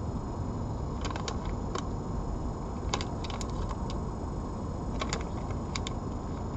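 An animal crunching dry pet food: sharp, irregular clicks of kibble breaking, in short clusters, over a steady low rumble and hiss.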